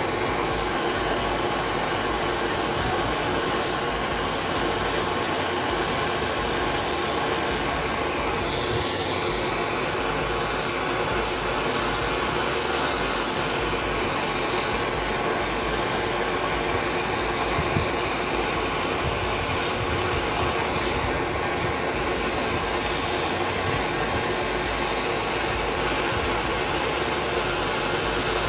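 Steady, continuous noise of a motor-driven machine or power tool running, with a high whine on top.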